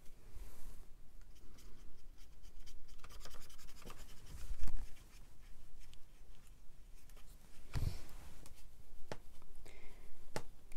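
Watercolour brush scrubbing and swirling paint in the pans and wells of a palette tin, in many fine scratchy strokes. There is a dull bump about halfway through, and a few sharp clicks near the end.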